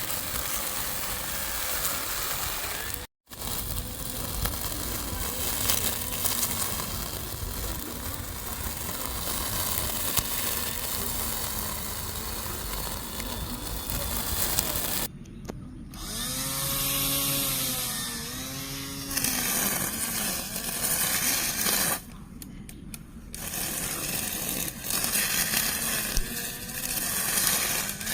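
Small electric lawn mower running and cutting, a steady motor whine with cutting noise. It drops out abruptly a few times, and in the middle its pitch rises and falls.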